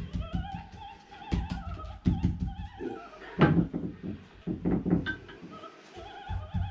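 A paintbrush dabbing resin into fibreglass mat on a boat hull, making a series of irregular soft thuds, the loudest about three and a half seconds in. Under it, a radio plays a woman singing opera with a strong vibrato.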